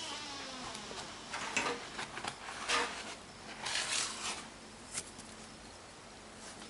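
Chunks of dried baking soda being crushed, a series of gritty crunches and crumbling crackles, fading to a faint hiss after about five seconds.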